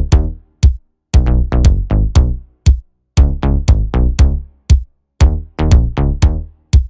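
Background music with a steady electronic drum-machine beat: short, punchy bass-heavy notes in repeating phrases of about a second, each broken by a brief gap.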